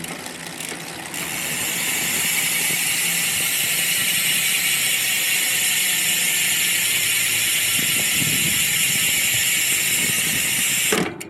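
Mountain bike rear freehub buzzing as the back wheel spins freely: a fast, continuous ratchet of the hub's pawls. It starts about a second in and cuts off abruptly near the end.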